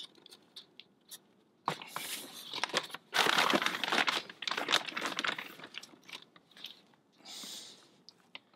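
Loose compost crunching and rustling as it is scooped out of a plastic compost bag and spread by hand, with the bag crinkling. The loudest stretch runs from about three to five and a half seconds in, with shorter bursts before and after.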